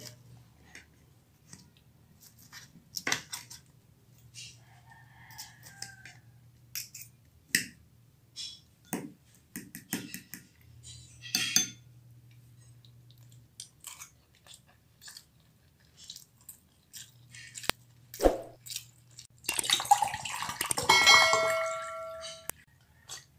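Eating a crispy fried shrimp fritter: scattered crisp crunches and chewing, with clicks of a knife and fork on a plate. About twenty seconds in, a busier clatter of tableware with brief ringing tones.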